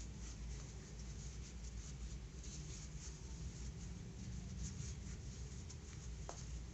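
Crochet hook and plush yarn rustling softly as single crochet stitches are worked, with small ticks and one brief click near the end, over a low steady hum.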